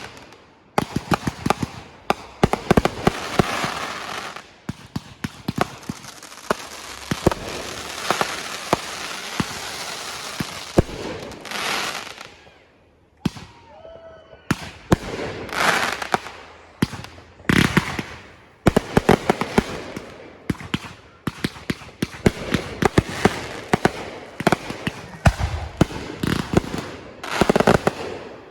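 Aerial fireworks going off: rapid sharp bangs and long stretches of dense crackling, with a short lull about halfway before the volleys pick up again.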